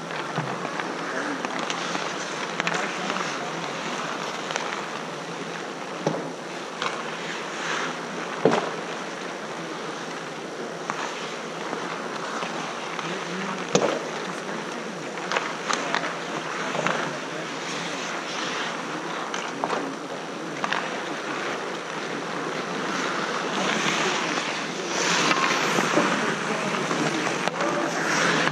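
Ice hockey skates scraping and carving on outdoor rink ice in a steady wash, with sharp clacks of sticks and puck every few seconds. It grows louder near the end as players skate close by.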